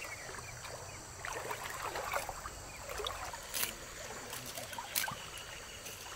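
Net being cut and handled: a few short, sharp snips or snaps spaced a second or more apart, over a soft background hiss.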